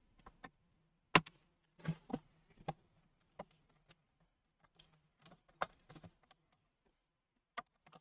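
Plastic bottom cover of an HP 11 laptop being pried off the chassis: a scattering of sharp plastic clicks and snaps at irregular intervals as its clips give way, the loudest about a second in.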